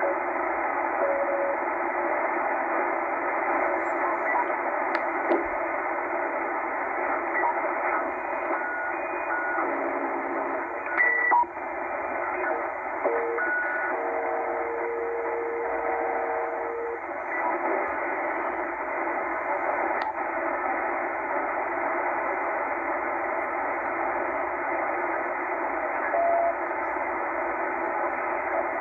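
Tecsun H-501X shortwave receiver in upper-sideband mode being tuned upward through about 12.2 to 12.4 MHz: steady static hiss from the speaker, with short whistle tones as the tuning passes carriers, one low whistle held for a few seconds about halfway through.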